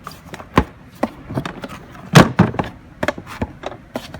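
Clicks and knocks from a Kärcher wet-and-dry vacuum cleaner being handled, its housing opened to show the inside. The loudest knock comes about two seconds in.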